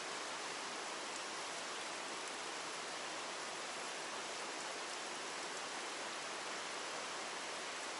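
Steady rush of water flowing through a narrow stream channel, an even hiss that does not change.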